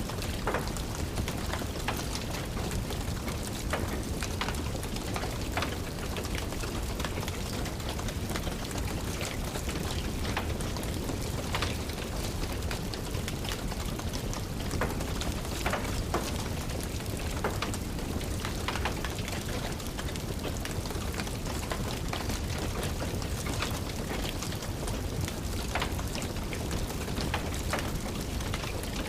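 Steady rain, with the irregular crackling and popping of a wood fire over it.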